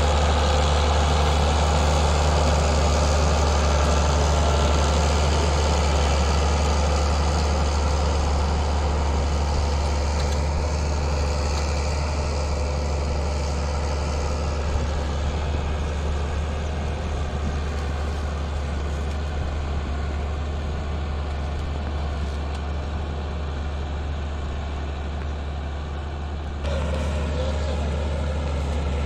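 Massey Ferguson 399 tractor's six-cylinder diesel engine running steadily under load while pulling a plow through the soil. It grows gradually fainter as the tractor moves away, then turns a little louder again near the end.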